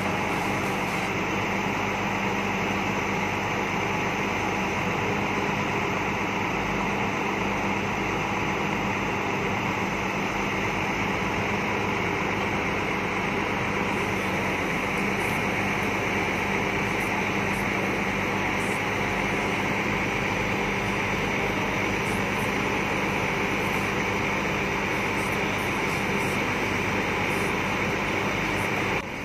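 Crane truck's diesel engine running steadily to drive the hydraulics of its knuckle-boom crane, with a constant low hum, while the boom lifts a load.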